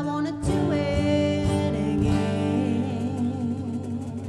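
A woman singing drawn-out notes with vibrato over a strummed acoustic guitar, with a few cajón hits. This is the close of the song: the playing stops and the last guitar chord rings out and fades.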